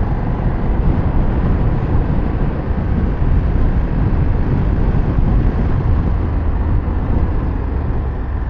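KTM 1390 Super Duke R V-twin motorcycle being ridden at a steady pace, its engine running under a constant rush of road and wind noise, with no revving or change in speed.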